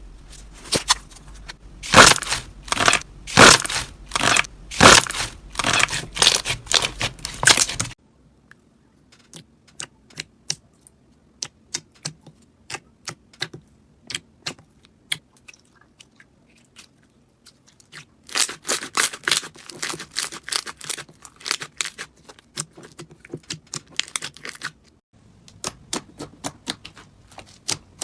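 Slime being squeezed and worked by hand, making crackling and popping clicks. The clicks come in dense loud runs for the first several seconds and again after the middle, with sparser, quieter clicking in between.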